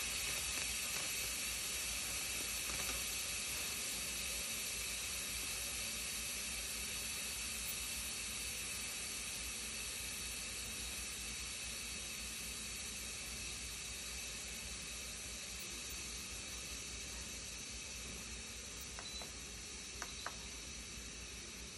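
Instant Pot pressure cooker venting steam through its release valve during a quick pressure release: a steady hiss that slowly weakens as the pressure falls. Two faint clicks near the end.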